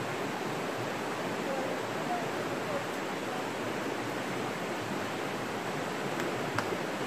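Steady rush of a shallow river running over rocks, with faint voices in the background.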